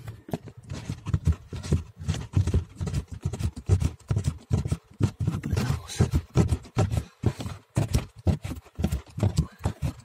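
Rapid, irregular clicks and knocks, several a second, from a Torx screwdriver working the screw that holds a replacement blower motor resistor under a car's dashboard, with plastic trim and wiring being handled.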